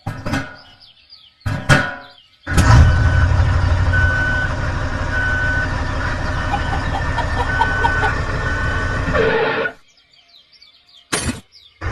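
Heavy vehicle engine running with a reversing beeper sounding in short beeps at uneven intervals; it starts a few seconds in and cuts off near the end, after a couple of brief sounds.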